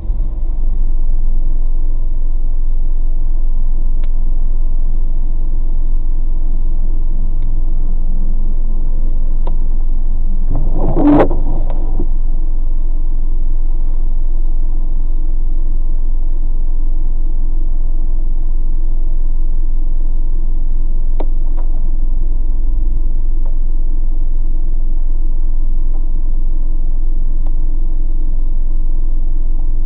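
Car engine idling with a steady low rumble, heard inside the cabin through a dashcam microphone, with a few faint ticks. A brief louder noise rises and falls about eleven seconds in.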